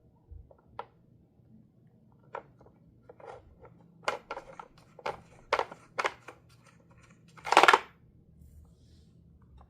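Hard plastic pieces of a dog treat-puzzle toy clacking and knocking as a cat works at it: scattered single clicks at first, a quick run of knocks about four seconds in, then one louder, short rattling scrape near the end.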